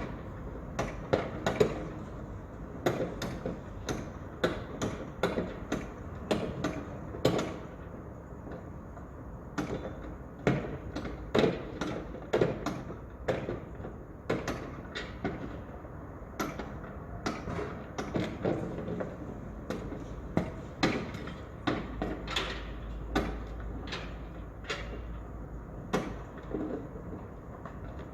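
Construction site noise: irregular knocks and clanks, two to four a second and uneven in loudness, over a steady low rumble. The rumble grows deeper for a few seconds about three quarters of the way through.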